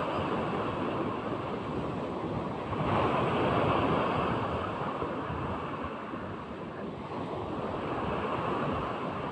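Sea waves surging and breaking in a steady wash of surf, swelling louder about three seconds in.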